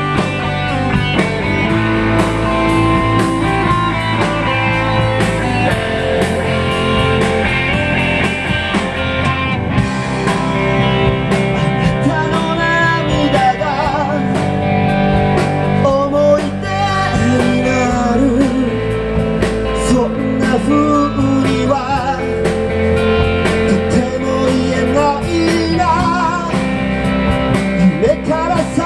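Live rock and roll band playing: electric guitars over drums, with a man singing.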